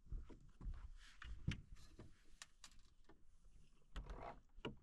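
A series of irregular knocks, clunks and thumps, with a short rustling scrape about four seconds in.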